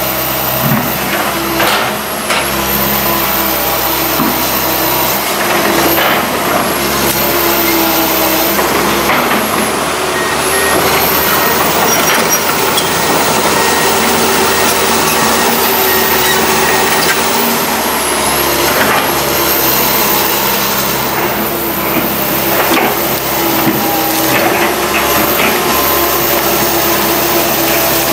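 Komatsu PC160 hydraulic excavator's diesel engine running steadily under load while it pushes over trees, with scattered sharp cracks and knocks from breaking wood.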